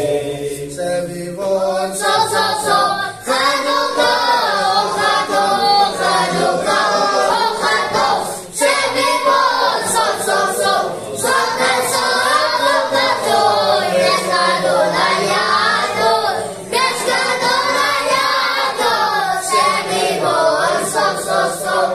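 A group of men and children singing a Hanukkah song together, unaccompanied, in long phrases with a few brief pauses between them.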